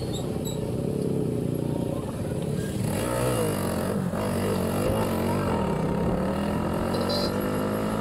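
Motorcycle engine running on the move, its pitch dipping and rising with speed changes, then climbing steadily near the end as it accelerates.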